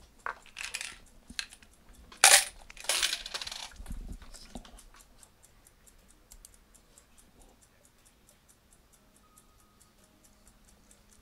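Steady, fast ticking of a mechanical egg timer, with clattering and clinking handling noises over it in the first few seconds: the loudest a sharp clack about two seconds in, followed by a low thump.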